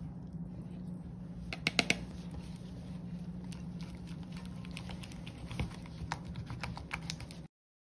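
Spatula stirring cream in a plastic bowl: scattered light clicks and taps against the bowl, loudest about two seconds in and again toward the end, over a steady low hum. The sound cuts off suddenly near the end.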